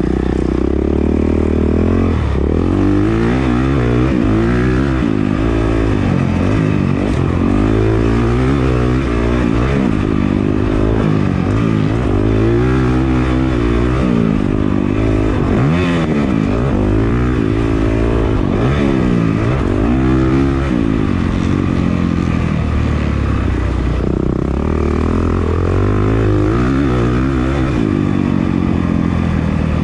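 Honda CRF450R's single-cylinder four-stroke engine heard from on board, revving up and falling back again and again as it is ridden hard around a motocross track, with a steadier stretch a little past the middle.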